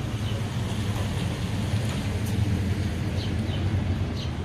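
Steady low mechanical hum with a light noisy hiss over it, and a few faint high chirps near the end.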